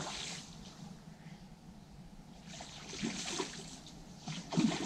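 A hooked tench splashing and swirling at the surface close to the bank as it is played on a rod, in three short bursts: at the start, about three seconds in, and loudest near the end.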